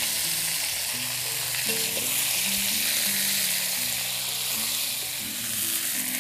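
Water spinach (kangkung) sizzling steadily in hot oil with sliced onions as it is stir-fried.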